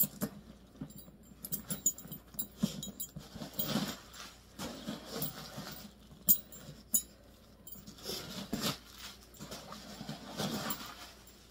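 A leather Dooney & Bourke drawstring bucket bag being handled: its metal strap clasp and hardware click and clink again and again, with leather rubbing and rustling in between.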